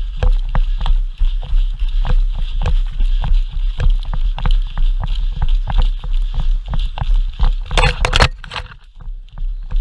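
An airsoft player's rapid footsteps, about three a second, with gear and clothing rustling close to the body-worn microphone and a low rumble of handling noise. About 8 s in there is a louder burst of rustling.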